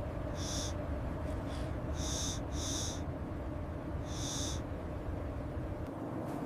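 Four short, high-pitched animal calls over a steady low rumble.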